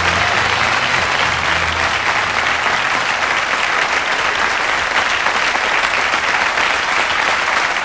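Large studio audience applauding, steady and continuous.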